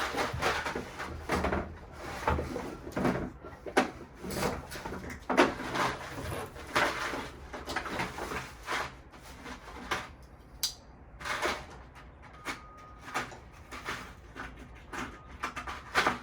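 Hands rummaging through a patio heater's hardware kit to sort out bolts and nuts: irregular rustling with many small clicks and knocks.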